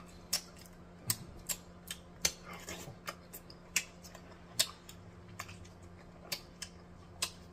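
Close-miked chewing of a spoonful of grilled conch stew with white rice: sharp wet mouth clicks and lip smacks at irregular intervals, about two a second, over a faint steady hum.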